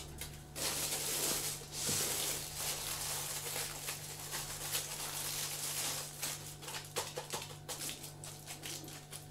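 Aluminium foil crinkling and rustling as hands roll and press a foil-wrapped log against a cloth, with many small irregular crackles.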